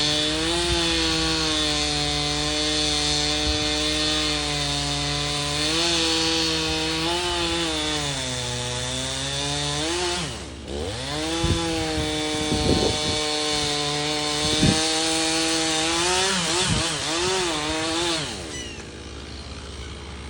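Two-stroke chainsaw cutting timber, its engine pitch sagging and recovering as the chain loads up in the wood. The saw drops off sharply about halfway, revs back into the cut with a few sharp knocks, and stops near the end.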